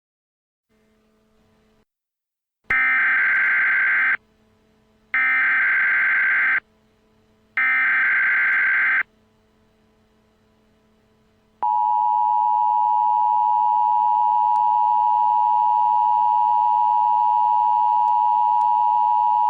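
Emergency Alert System broadcast tones. First come three screeching digital SAME header bursts, each about a second and a half long and about a second apart. About four seconds after the last burst, the steady two-tone EAS attention signal (853 and 960 Hz) starts and holds for about eight seconds.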